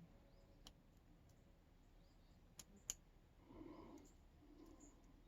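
Near silence with a few faint clicks of a lock pick working the pins inside a Yale padlock's keyway under very light tension, the sharpest about three seconds in, and a soft rustle of handling just after.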